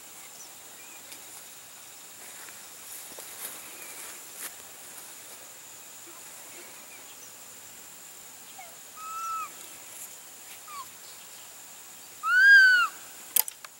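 An animal calling out in the open: a few short arched, whistle-like notes, the loudest about twelve seconds in, over a steady high hum of insects. A single sharp click comes near the end.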